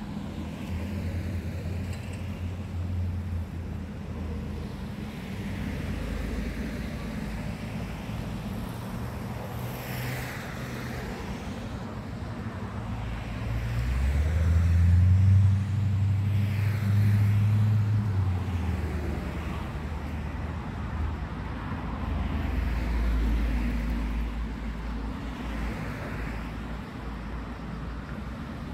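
Road traffic passing on both sides: car engines and tyres going by, one after another. About halfway through, a louder vehicle with a deep engine drone swells up and passes.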